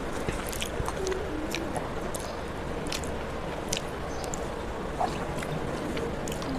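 Eating rice by hand: fingers mixing rice on a steel plate and mouth chewing, heard as scattered soft clicks and smacks over a steady background hiss.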